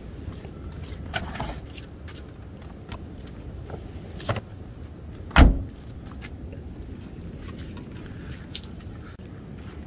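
Camping gear being packed into a microvan through its sliding side door in wet weather: scattered knocks and clatter, with one loud thud about five and a half seconds in, over a steady low background noise.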